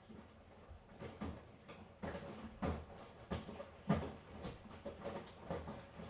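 Miele washing machine drum tumbling a wet wash load: irregular soft thuds and swishes as the laundry lifts and drops, a couple each second, with the loudest knock about four seconds in.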